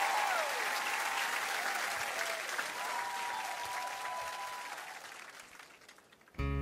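Studio audience applauding, with a few voices calling out, dying away over the last couple of seconds. A band starts playing abruptly right at the end.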